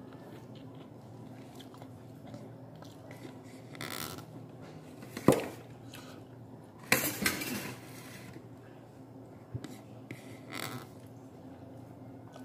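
Eating by hand from a ceramic plate: fingers gathering rice and vegetables against the plate, with one sharp clink about five seconds in and a few shorter eating sounds, over a steady low hum.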